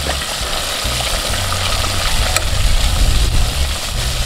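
Battered chicken pieces deep-frying in a pot of hot oil: a steady, loud sizzle, with a low rumble underneath and one sharp click about two and a half seconds in.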